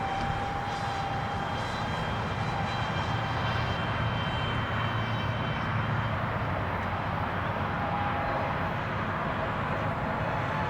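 Several radio-controlled racing boats running flat out, their small engines making a steady high-pitched whine whose pitches drift slightly up and down as the boats move around the course.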